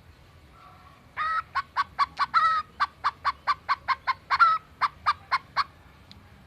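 Green leafbird (cucak ijo) mimicking a hen's cackle: a quick run of about twenty short clucking notes, roughly four a second, starting about a second in and stopping near the end, with a few longer drawn-out notes among them.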